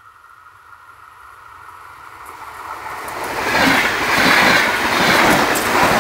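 UT-440R electric multiple unit approaching and passing close by at speed. It grows steadily louder and is loudest from about three and a half seconds in, when the cars go past with rapid clicking of wheels on the rails, then eases off near the end.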